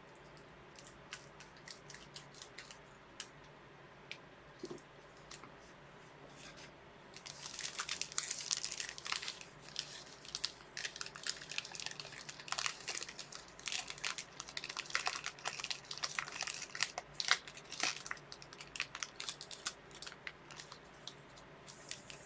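Trading card packaging crinkling and tearing as it is handled, after several seconds of light scattered clicks.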